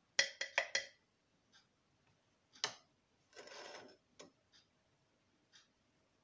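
Light clicks and knocks of kitchen containers and utensils being handled while hot ointment is strained through gauze. There is a quick run of four knocks just after the start, a single sharp click a couple of seconds in, and a short scrape around the middle, followed by a few faint ticks.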